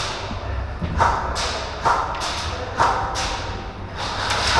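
Airsoft guns firing scattered single shots, about ten sharp cracks at irregular intervals, each trailing off in an echo.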